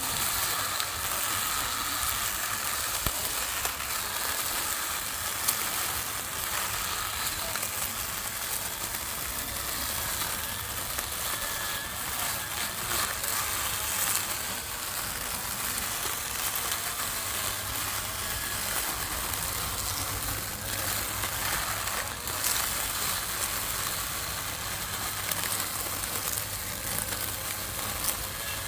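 Small lawn mower cutting grass: a steady crackling hiss from the blade going through grass, with many small sharp clicks.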